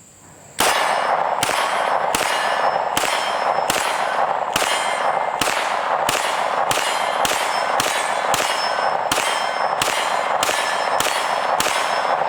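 A 9mm Smith & Wesson Competitor-series pistol fired in a long steady string, about twenty shots at roughly two a second, starting about half a second in. A metallic ringing carries on between the shots.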